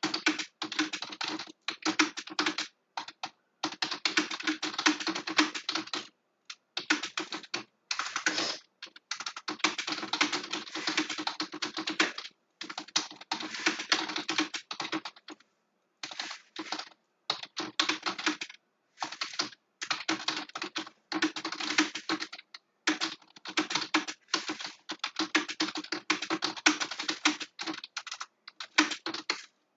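Fast typing on a computer keyboard: rapid key clicks in runs of a few seconds, broken by brief pauses.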